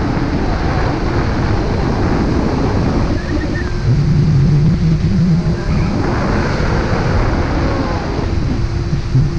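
Wind noise on the microphone of a camera carried on a paraglider in flight: loud, steady buffeting of rushing air.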